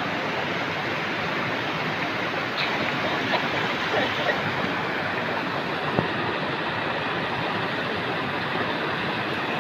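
Waterfall of glacial meltwater rushing in a steady, even roar, with a faint click about six seconds in.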